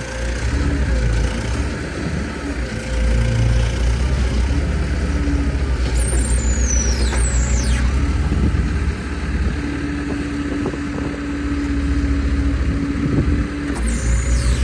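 Tractor engine running steadily under load as it lifts with its forks, a low pulsing rumble. A steady hum joins in for a few seconds past the middle, and high whistles fall in pitch twice.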